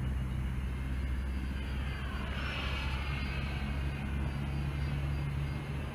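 Twin 80 mm electric ducted fans of a Freewing A-10 Warthog RC jet whining in flight; the whine swells and its pitch bends up and then down about halfway through, as of the jet passing by.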